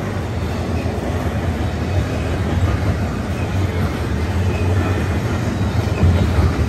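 Double-stack intermodal freight train rolling past at speed close by: a steady deep rumble of well-car wheels on the rails.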